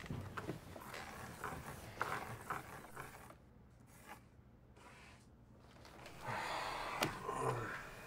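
A man's breathing and small rustles of movement on a sofa, with a longer breathy rush near the end and a single sharp click within it.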